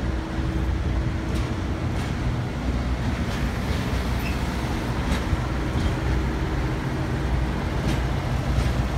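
Diesel gensets on refrigerated shipping containers running together as a steady low hum, with scattered sharp clicks every second or so.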